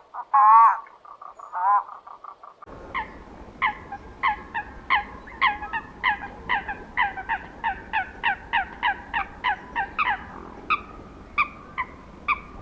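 Animal calls: first a few arched, pitched calls, then a long run of short, honking calls that fall in pitch, two or three a second, over a low steady background hum, thinning out near the end.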